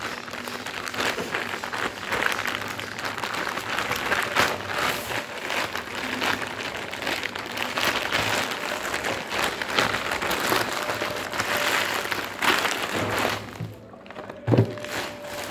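Plastic courier mailer bag crinkling and tearing as it is ripped open by hand, with a single thump near the end.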